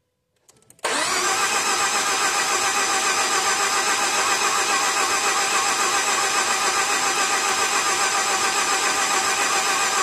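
Starter cranking the freshly rebuilt engine of a 2013 Ford F-150 with the key, starting about a second in with an even, rapid pulsing and never firing. The ignition is disabled, so the engine only turns over to build oil pressure. The cranking shows the truck's no-crank fault, a PCM not communicating, is fixed.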